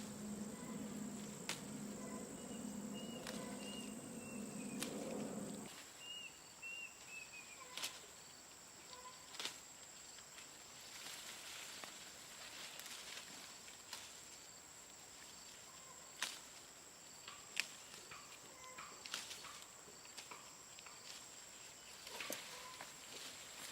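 Rainforest ambience: a steady high insect drone, a few short falling chirps from a small bird, and scattered sharp clicks and knocks of sticks or clay being handled. A low steady hum sounds through the first six seconds and then cuts off suddenly.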